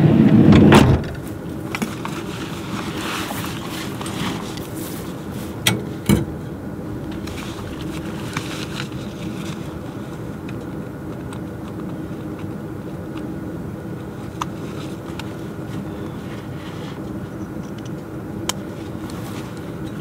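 Van driving: a steady low engine and road hum with a few small clicks and rattles. A louder rush ends about a second in.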